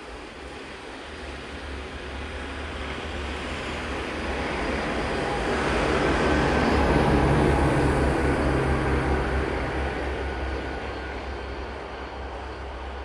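A motor vehicle passing by: its engine and tyre noise swells gradually to its loudest about seven seconds in, then fades away.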